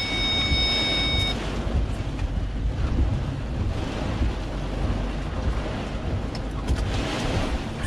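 Storm wind and rain buffeting a parked vehicle, heard from inside the cab as a steady rushing noise with strong low rumble. A steady high electronic tone sounds for about the first second and a half, then cuts off.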